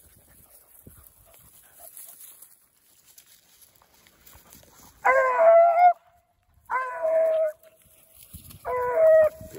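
Beagle rabbit hound baying three times on a rabbit's track, each bay drawn out and ending on a held note. The bays come about every second and a half, starting about halfway through, after faint rustling in the brush.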